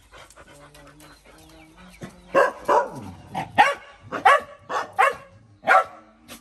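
Dog barking angrily in a quick string of about seven sharp, loud barks, starting about two seconds in, after a quieter stretch of low held sounds.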